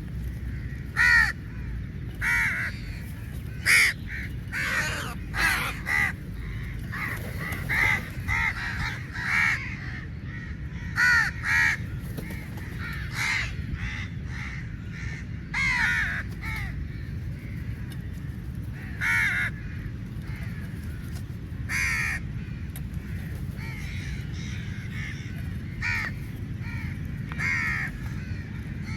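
Many crows cawing: short harsh calls coming quickly and overlapping through the first half, thinning to occasional single caws in the second half, over a steady low background rumble.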